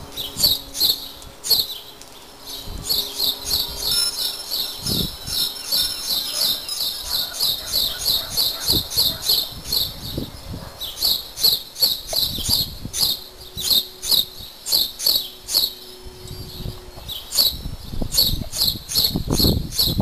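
A small bird chirping over and over, about three short, high chirps a second, in long runs broken by a couple of brief pauses.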